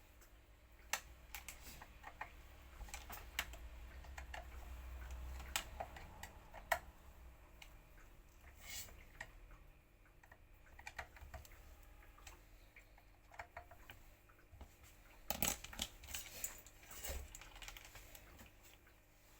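Irregular light clicks and taps of small hard parts being handled, with a denser cluster of clicks about fifteen seconds in.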